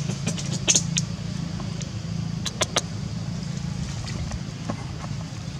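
A steady low mechanical hum, like an engine running, with scattered short clicks, a few of them close together about halfway through.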